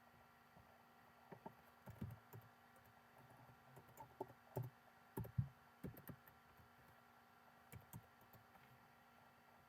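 Faint, irregular clicks and taps of typing on a computer keyboard, over a faint steady hum.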